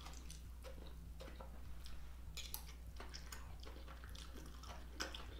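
Close-miked chewing of a mouthful of vegan sausage and pepper stir fry: soft wet mouth clicks and smacks, over a steady low hum.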